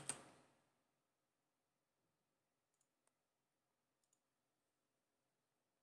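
Near silence broken by two quick computer-keyboard keystrokes at the very start, then a few faint mouse clicks about three and four seconds in.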